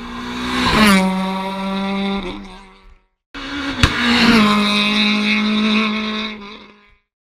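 Rally car engines at high revs going past at speed, twice. Each pass swells, drops sharply in pitch as the car goes by, then holds a steady note as it pulls away; a sudden cut between them about three seconds in.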